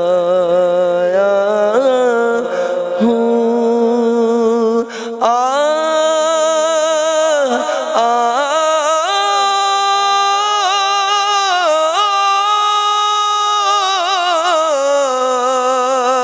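A man singing a naat unaccompanied, drawing out long melismatic notes without words. After a short break about five seconds in, his voice climbs and holds a high note for several seconds before falling back.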